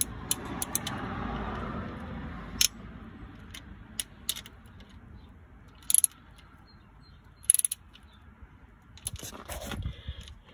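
Scattered sharp metallic clicks and clinks of a wrench being worked on the new water pump's mounting nuts, a couple of them ringing brightly, after a rustle of handling in the first couple of seconds.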